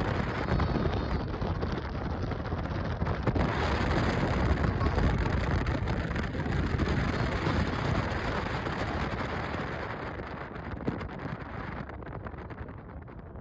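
Wind buffeting the microphone: a loud, uneven rushing rumble, heaviest in the low end, that fades over the last few seconds.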